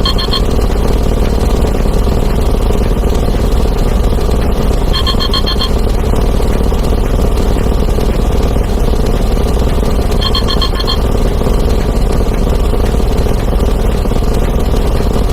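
A dense, continuous wall of rapidly repeated, overlapping sound effects (explosions, breaking glass and a synthesized voice saying "plus one") that blurs into a steady roar. A short trilling phone ring cuts through three times, about every five seconds, one for each ten thousand counted.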